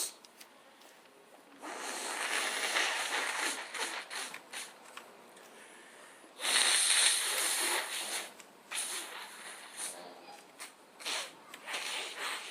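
A man sneezing: two loud, sudden, noisy sneezes about two seconds and six and a half seconds in, the second the louder, followed by shorter sniffs and breaths.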